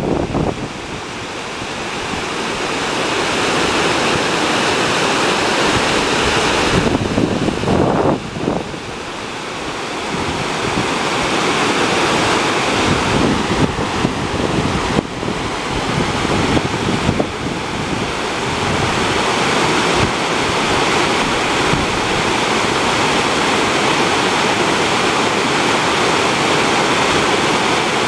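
Lake water pouring over a low concrete spillway into churning white water: a loud, steady rush. Gusts of wind rumble on the microphone now and then, most in the first second and around eight seconds in.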